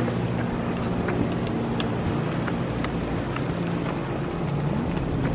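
Steady engine hum of a motor vehicle, its pitch bending up and down a little near the end.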